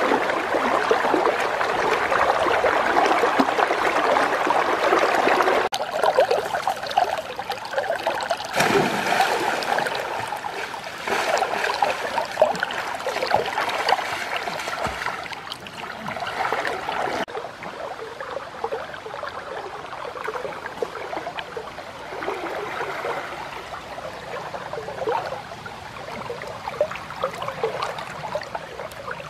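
River water flowing and lapping close to the microphone, with splashing as a man wades and swims through it. The sound is loudest in the first few seconds and changes abruptly a few times, settling quieter in the latter part.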